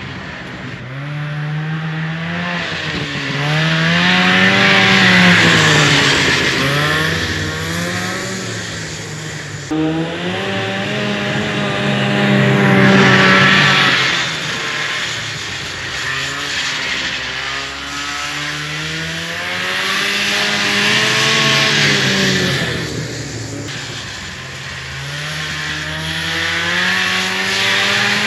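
The Arctic Cat Lynx snowmobile's fan-cooled 340 two-stroke engine revving up and dropping back, over and over, its pitch rising and falling in several long swells.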